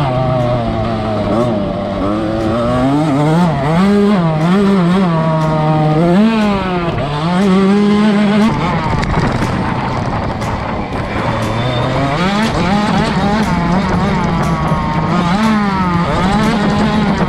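A KTM 65 dirt bike's small two-stroke single-cylinder engine revving, its pitch rising and dropping over and over as it pulls along a dirt track, heard from a camera mounted on the bike.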